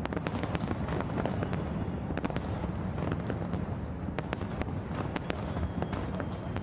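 Fireworks display: aerial shells bursting in quick succession, a continuous deep rumble of booms with many sharp cracks and crackles over it.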